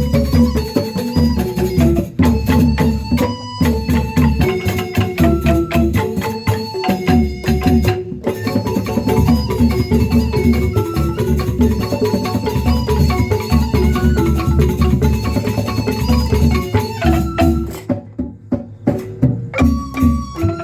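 Fast ensemble music of mallet-struck pitched percussion over a steady low drum beat, thinning to a few sparse strokes near the end.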